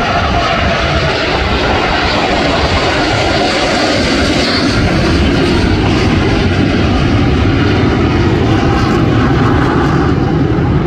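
Four Blue Angels F/A-18 jets flying over together, their engines making a loud, steady jet noise throughout.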